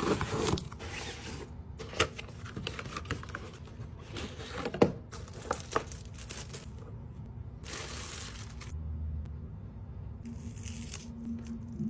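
Unboxing handling noise: scissors slitting packing tape on a cardboard box, then cardboard and plastic wrap rustling and crinkling in short bursts, with a few sharp clicks and knocks as the packaging is handled.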